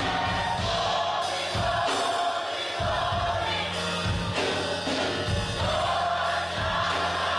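Gospel music with a choir singing over a steady bass accompaniment.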